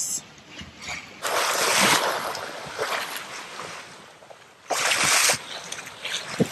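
Sea water rushing and splashing along the hull of a sailboat under way under sail, with two louder surges, one about a second in and one near five seconds.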